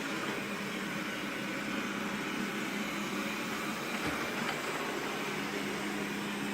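Xiaomi Mi robot vacuum cleaner running mid-clean: a steady fan and motor hum with an even hiss.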